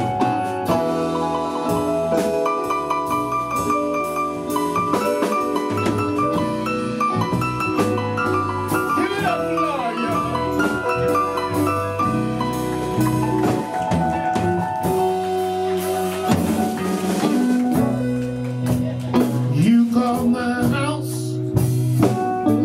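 Live blues band playing an instrumental passage of the song, with drum kit under sustained keyboard and guitar notes.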